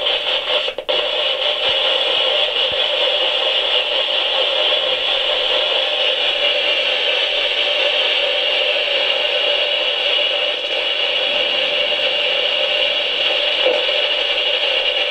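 Spirit box sweeping through radio stations: a steady hiss of radio static with a brief dropout about a second in.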